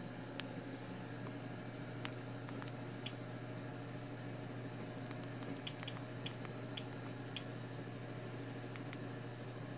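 Small plastic clicks of Fire TV remote buttons being pressed: a few single clicks early on, then a run of about five clicks half a second apart around six to seven seconds in, over a steady low hum.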